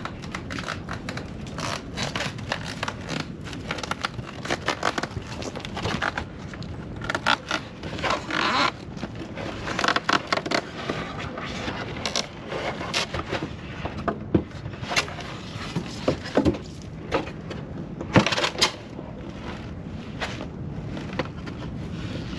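Irregular scraping, clicking and knocking of parts being handled as a trolling motor head is set onto its shaft and fitted with Allen bolts, with one sharper knock near the end.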